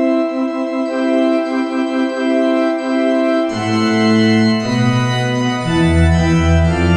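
Organ music playing held chords; deeper bass notes come in about halfway through, and the chords then change every second or so.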